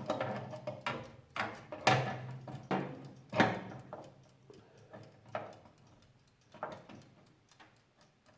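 Screws being fitted with a screwdriver into a replacement oven control part: a series of irregular sharp metal clicks and knocks, louder in the first few seconds and fading toward the end.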